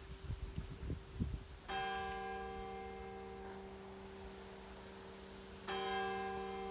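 Church bell tolling slowly: two strokes about four seconds apart, each ringing on and fading slowly into the next. A few low thuds in the first second and a half.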